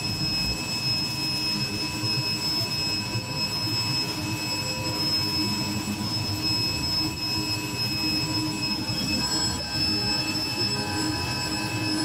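Ryobi electric pressure washer running steadily, a high steady whine over the hiss of its water jet hitting concrete.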